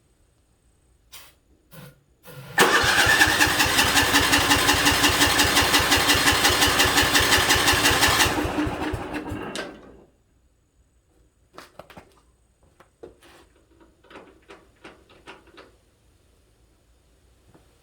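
Sears 10/6 lawn tractor's single-cylinder engine being cranked on starting fluid. After a couple of clicks it turns over in a fast, even, pulsing rhythm for about six seconds, then cuts off and winds down. A few light knocks and clicks follow.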